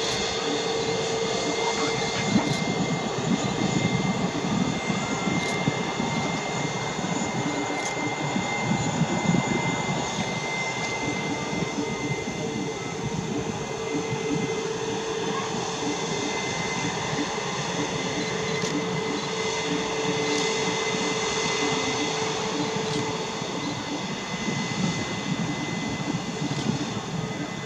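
Airbus A321neo's Pratt & Whitney PW1100G geared turbofans at low taxi power: a steady engine whine with a few held tones over a rumble.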